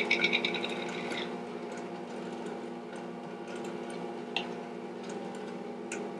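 Plastic measuring spoons clicking and rattling quickly for about the first second as they are handled, then a steady low hum with a few faint clicks.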